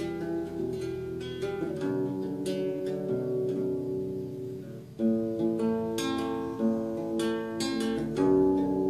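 Acoustic guitar played solo, notes and chords picked one after another, with a louder chord about five seconds in.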